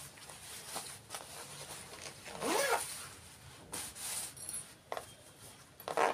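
Cloth rustling and rubbing as the sewn fabric pieces of a tote bag are opened out and smoothed by hand, with a brief gliding squeak about two and a half seconds in.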